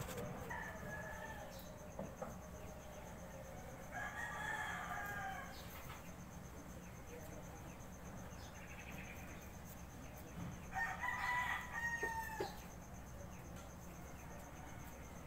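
Rooster crowing twice: one long crow about four seconds in and another about eleven seconds in.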